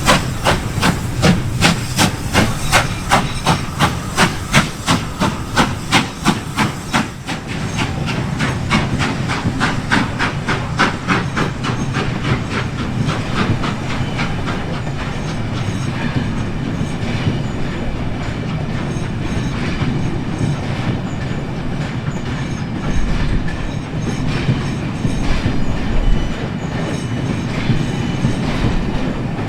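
Steam-hauled train passing: a run of sharp, regular beats that quicken and fade over the first seven seconds, then the steady rumble and wheel clatter of the carriages rolling by.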